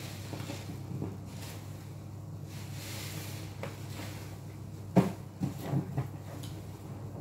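A large foam car-washing sponge, new and soaked with soapy water, squeezed and wrung by hand, squelching wetly with foam crackling. About five seconds in come a few sharper, louder wet slaps and splashes as a hand plunges into the suds in the sink.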